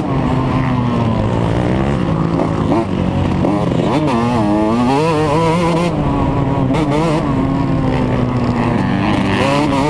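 Yamaha motocross bike's engine under way on a dirt track, revving up and down with the throttle. Its pitch climbs sharply about four seconds in and again near the end, and runs steadier in between.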